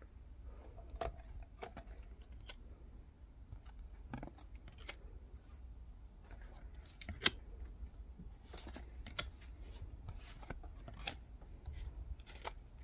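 Baseball trading cards being handled one by one, sliding and flicking against each other in faint, irregular clicks, over a low steady hum.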